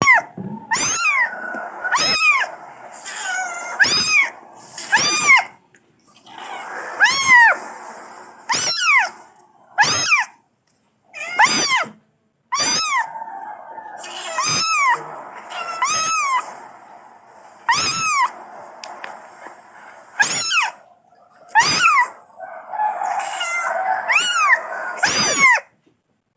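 Angora kitten meowing over and over, a call every one to two seconds, each meow rising then falling in pitch: a kitten's cries calling for its mother.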